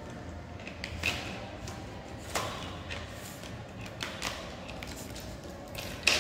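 A few separate light knocks and taps, the loudest just before the end.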